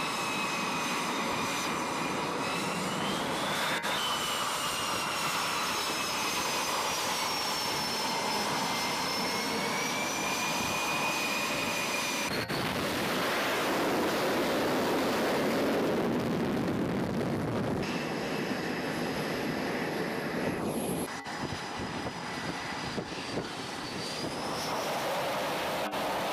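F/A-18E Super Hornet jet engines running at high power on a carrier catapult: a loud rushing noise with high whining tones that slide up and down in pitch. The noise swells loudest about halfway through as a jet launches, and it changes abruptly twice at edits.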